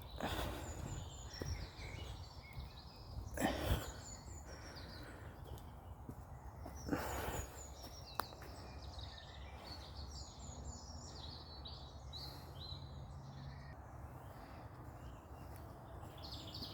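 Woodland birds singing, many short chirps and trills, with three brief rustling noises from walking on the path.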